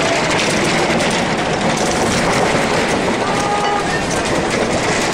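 Earthquake shaking: a loud, steady, dense rumbling and rattling noise with no pauses.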